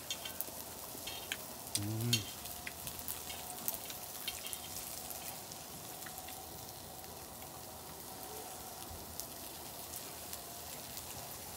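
Food sizzling as it fries: a steady hiss with scattered small pops and crackles. There is a brief vocal sound about two seconds in.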